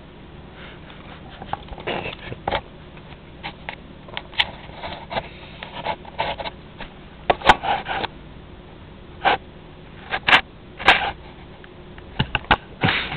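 A cat sniffing close at the camera and nosing and bumping against it: irregular close-up sniffs, rubs and knocks, with the sharpest knocks coming around the middle and later on.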